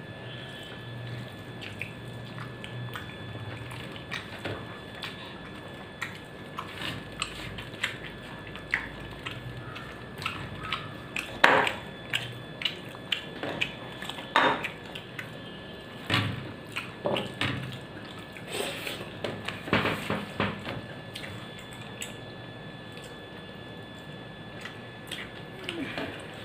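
Close-up eating by hand from a steel plate: wet mouth smacks and chewing of a rice meal, with fingers mixing rice and scraping and tapping the plate. Scattered clicks grow denser and louder through the middle, with the sharpest ones about a third and halfway in. A faint steady hum runs underneath.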